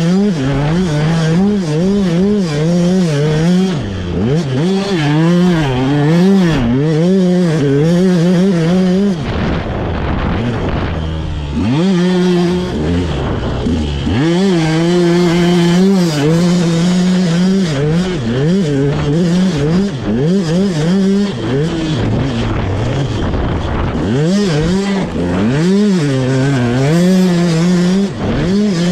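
KTM 200 SX single-cylinder two-stroke engine revving hard and dropping back over and over, its pitch swinging up and down about once a second as the bike is ridden through sand whoops. Twice, about ten seconds in and again past twenty seconds, the engine falls to a lower, slower note for a couple of seconds before picking up again.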